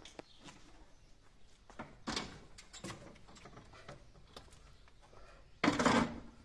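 Scattered knocks and clunks as a split air-conditioner's outdoor unit is handled on its metal wall brackets, ending with a louder scraping clunk about half a second long near the end as the unit is shifted into place.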